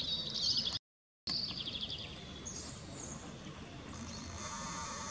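Outdoor ambience with small birds chirping and trilling, the sound dropping out completely for about half a second about a second in. Near the end a steady, slightly wavering high whine begins, from the camera's zoom motor as it zooms in.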